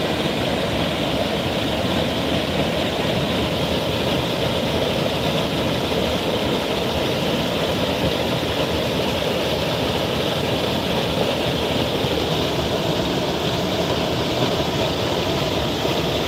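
Small waterfall cascading over rocks into a pool: a steady rush of white water heard up close.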